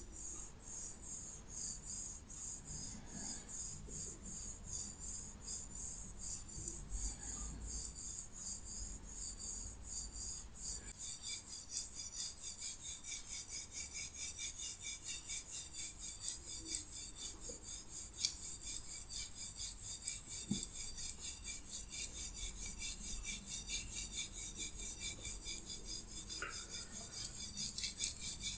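Thin metal wires of a handheld wire scalp massager scratching and rubbing through oiled hair in fast, even strokes, about four or five a second. The strokes grow more pronounced about eleven seconds in.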